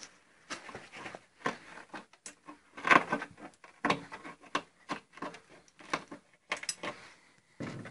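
Handling noise: irregular clicks, taps and short rustles close to the microphone as hands work around a rusted car-body fuel filler recess. The loudest cluster comes about three seconds in.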